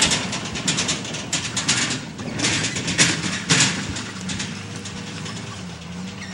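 Pickup truck driving fast over rough dirt ground with an ATV in its bed: engine running under a dense clatter of knocks and rattles, which thins out as the truck pulls away and the sound fades over the last couple of seconds.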